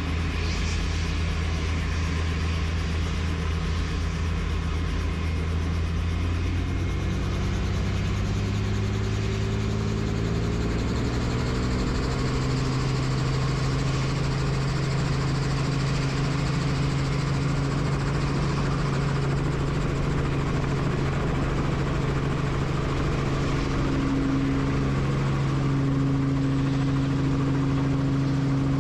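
Helicopter engine and rotor noise running steadily. Its low hum rises in pitch over several seconds about a quarter of the way in, then holds steady.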